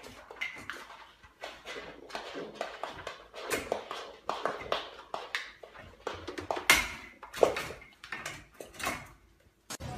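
Irregular taps and knocks from a young goat's hooves on a wooden floor as it pushes against the bars of a baby gate, with a short pause near the end.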